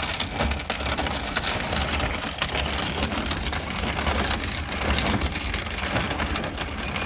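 Dried corn being ground in a hand-cranked Victoria cast-iron grain grinder: a steady, dense crunching and crackling as the auger forces the kernels between the grinding plates.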